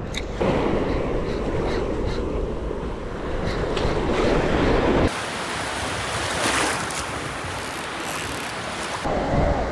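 Surf breaking on a beach with wind buffeting the microphone. The sound changes suddenly about five seconds in, losing its low rumble for a thinner, hissier sound, then returns near the end.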